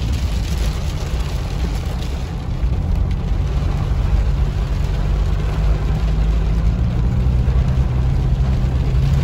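Toyota Hilux driving on a wet dirt road, heard from inside the cab: a steady low engine and tyre rumble that gets a little louder after a couple of seconds.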